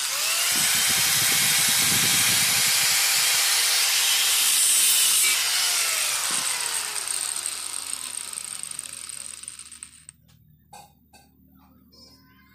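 Electric angle grinder switched on and spinning up, running for about five seconds while it cuts through a steel motorcycle accelerator cable, then switched off and winding down with a falling whine that fades out over several seconds. A few small knocks follow near the end.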